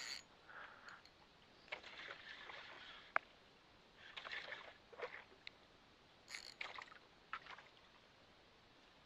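Small waves sloshing and splashing against a small boat's hull in short bursts, with a single sharp click about three seconds in.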